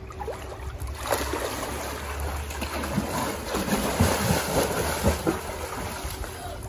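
Pool water splashing and churning as a child swims and kicks along an above-ground pool, starting about a second in.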